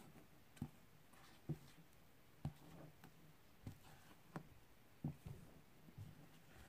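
Silicone spatula folding thick cake batter in a stainless steel bowl: soft thuds and scrapes about once a second.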